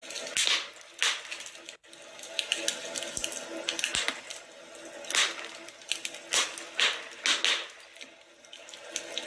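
Wood fire in a fireplace crackling, with irregular sharp pops and snaps over a constant hiss; the sound cuts out for an instant just under two seconds in.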